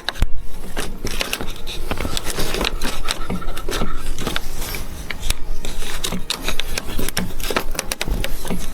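Irregular scraping and quick knocks and clicks of PVC irrigation pipe and fittings being handled and worked into place.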